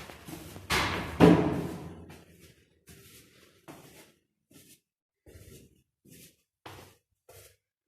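Elevator doors shutting with a loud bang about a second in, followed by a series of fainter, short knocks.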